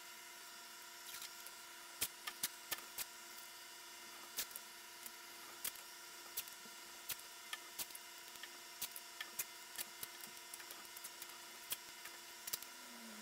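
Faint, irregular crackles and ticks of masking tape being pulled off the roll and pressed down around a car wheel.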